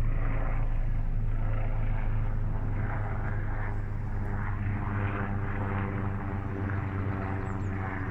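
A steady engine drone: a strong low hum with a stack of even tones, growing slowly fainter.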